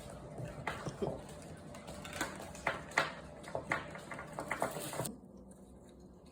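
A cockatoo's beak chewing and splintering a toy: irregular sharp cracks and crunches that stop about five seconds in.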